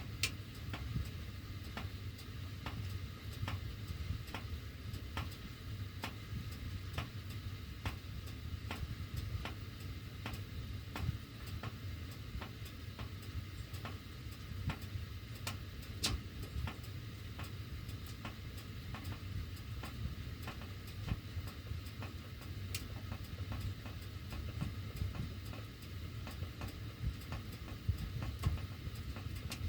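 Heating ductwork ticking over and over while the heat is on, with a steady low rumble of running air beneath it. One click about sixteen seconds in is louder than the rest.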